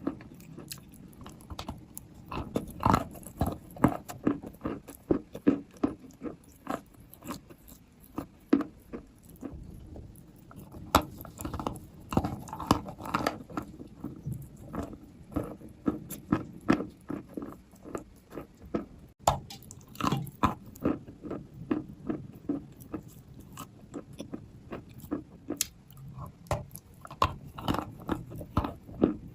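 Biting and chewing wet white chalk close to the microphone: repeated sharp crunches in irregular clusters, with short pauses between bites.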